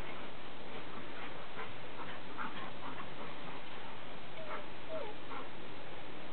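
A dog giving several short barks over a steady background hiss.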